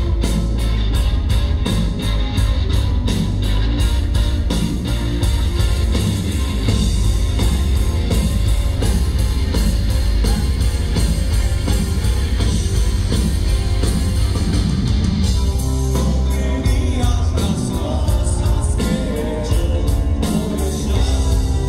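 Live rock band playing loud through a PA: electric guitar, bass guitar and drums in a driving rock groove.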